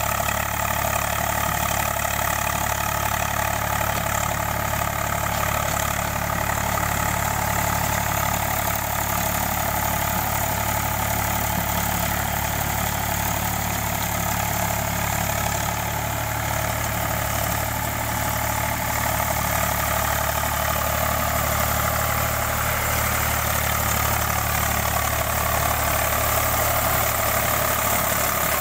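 Eicher 485 tractor's three-cylinder diesel engine running steadily under load as it drives a rotavator puddling a flooded paddy field.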